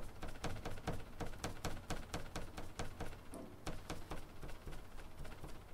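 Rapid soft taps of a paint dauber pouncing acrylic paint through a plastic paw-print stencil, about six taps a second, with a short break about three seconds in and sparser taps near the end.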